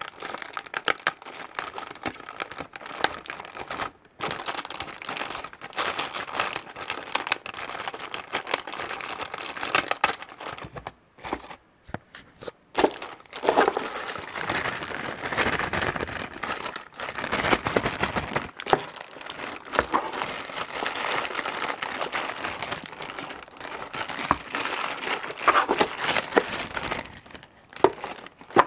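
Clear plastic packaging around a laptop power adapter crinkling as it is handled, in long irregular stretches with short pauses about four seconds in and again around eleven to thirteen seconds in.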